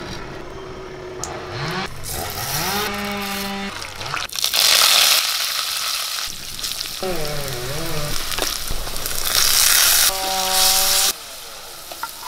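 Hot oil sizzling and spattering in an earthen clay pot as sliced shallots, curry leaves and green chillies go in and are stirred. It is loudest about four seconds in and again near ten seconds.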